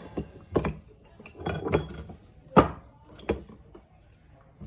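Metal parts clinking and knocking as they are handled and set down, about seven separate knocks with the loudest about two and a half seconds in.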